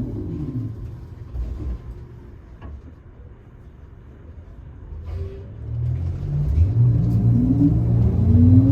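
Electric traction motor of a New Flyer XT60 trolleybus (Skoda motor, Kiepe drive). A falling whine dies away just after the start as the bus finishes slowing. After a low, quiet stretch, a rising whine and deepening rumble build from about six seconds in as the bus accelerates.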